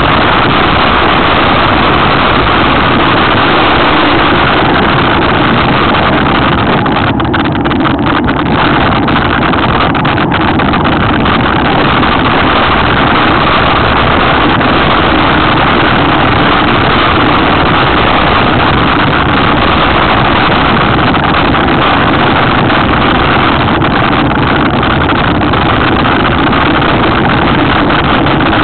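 Loud, steady wind roar on the microphone and rattling of a mountain bike descending a downhill trail at speed, with a few sharp knocks about 7 to 10 seconds in.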